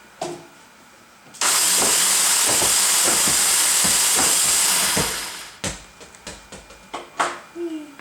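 Robot intake motors running loudly for about four seconds, starting about a second and a half in, with knocks of balls going through the intake; after the motors stop, a string of scattered knocks.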